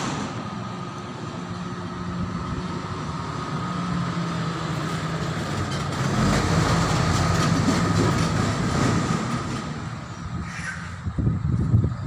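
A vehicle passing nearby: a steady rumble with a constant high tone swells to its loudest about two-thirds of the way through, then fades.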